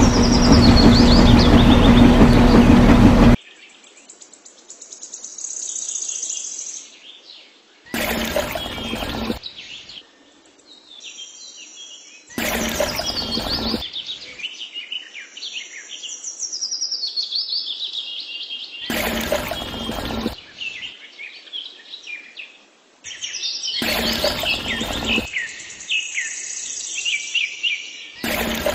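Small birds chirping and trilling throughout. For the first three seconds a loud, steady, engine-like drone plays over them and cuts off suddenly. After that, five short bursts of loud noise about a second and a half long come every four to six seconds.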